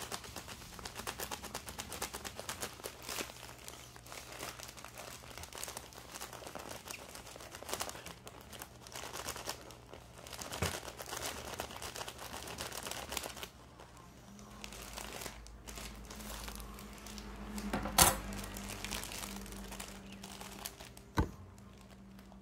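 Watermelon knife sawing through a plastic-wrapped soft pack of tissues: the plastic wrap crinkles and the paper tears with dense, rapid crackling. Two sharp knocks stand out near the end.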